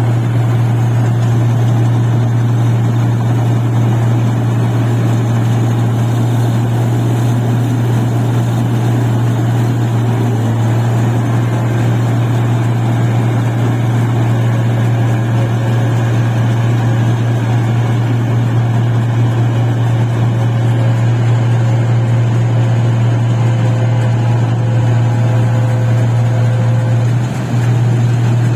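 Engine of a rice paddy machine running steadily, a loud constant low hum that dips briefly near the end.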